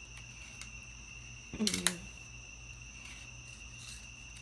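Crickets trilling steadily at night in two high pitches, with a short murmured voice sound about a second and a half in.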